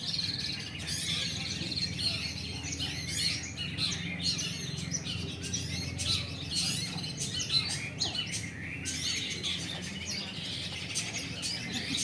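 Several caged long-tailed shrikes (cendet) singing at once: a dense, continuous run of overlapping chirps and rapid calls, over a low steady hum.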